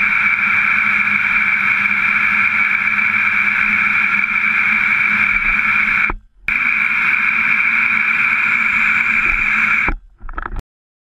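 Gilmour Foamaster hose-end foam sprayer spraying soapy water from the garden hose: a loud, steady hiss of water rushing out of the nozzle. It cuts out briefly about six seconds in, resumes, and stops shortly before the end.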